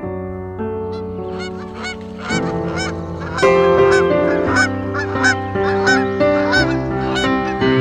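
Geese honking in a rapid series of calls that start about a second in and get louder about three and a half seconds in, over music with held chords.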